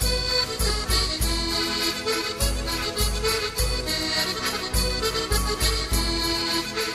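Background music with a steady beat: sustained melodic tones over a regular bass pulse.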